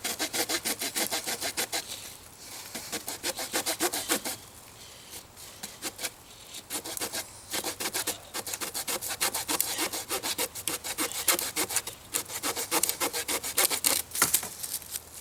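Victorinox Trekker pocketknife saw blade cutting wood in quick back-and-forth rasping strokes, about five a second. It pauses for a few seconds partway through, then resumes, with a sharper crack near the end.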